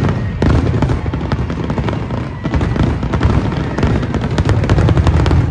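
Aerial fireworks going off in quick succession: many overlapping sharp bangs and crackles over a continuous deep rumble of booms.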